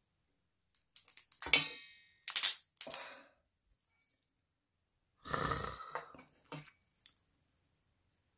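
A hair crab being broken apart by hand: several sharp cracks and snaps of shell in the first three seconds, then a longer crunching tear about five seconds in.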